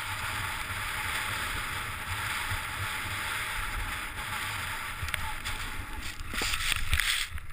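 Steady hiss of a rider sliding downhill through deep fresh snow, with wind rumbling on the microphone. About six seconds in it turns into a louder scuffling crash as the rider falls into the snow, then drops away abruptly.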